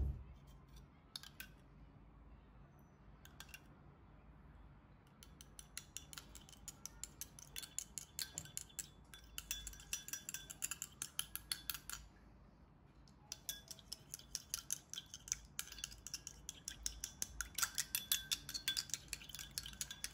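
Metal spoon beating egg yolk and milk in a small glass bowl: a quick run of clinks against the glass at several a second, stopping for about a second partway through and then going on. A few single taps come before the beating starts.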